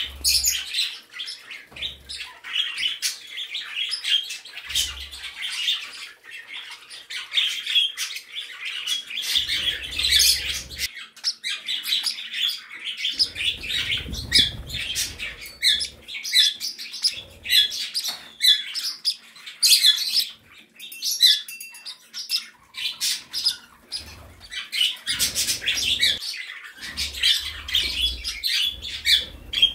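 A room full of small pet birds, budgies, cockatiels, canaries and other small parakeets and finches, chirping and chattering all at once with sharp squawks mixed in. There are occasional low thumps.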